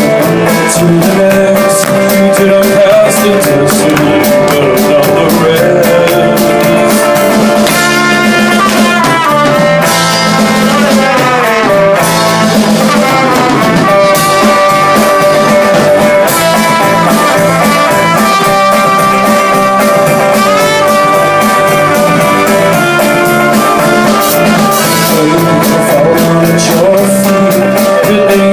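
A rock band playing loud and live, with electric guitars over a drum kit.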